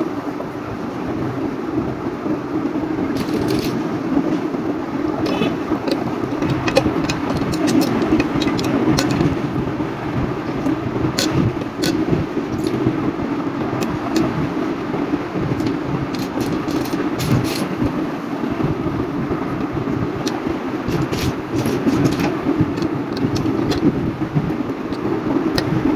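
Plastic building bricks clicking as they are pressed together and set down on a glass tabletop: scattered sharp clicks and small rattles, over a steady background noise.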